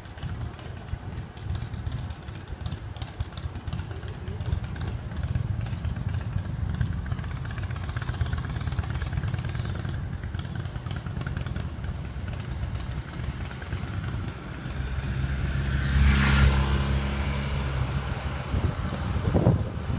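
Car and motorcycle engines running at low speed, a steady low rumble. About three-quarters in, a deeper engine hum sets in and briefly swells louder as the police motorcycles escorting the cars pull away.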